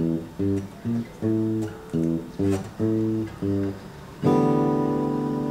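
Acoustic guitar playing a well-known riff of short, choppy chords, about two a second. About four seconds in, a full chord is struck and left ringing.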